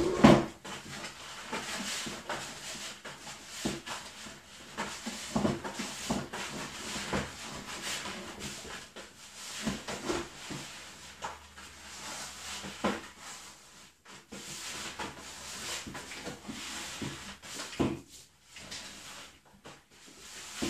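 Damp granulated sugar being mixed by hand in a plastic five-gallon bucket: a continual gritty rubbing and scraping with irregular small knocks against the bucket. It opens with a thump as the bucket is set down.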